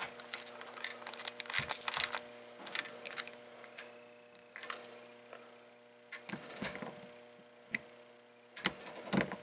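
Small socket ratchet wrench clicking in short, irregular runs as it tightens the handle nut of a baitcasting reel, with light clicks from handling the metal reel parts.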